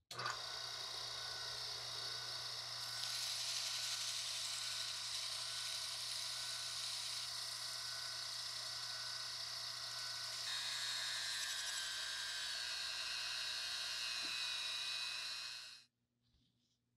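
Drill press running, spinning a small metal cup-shaped part on a screw mandrel while abrasive paper is pressed against it. A steady motor hum lies under a high sanding hiss that shifts several times, with a falling whine from about ten seconds in. It cuts off suddenly near the end.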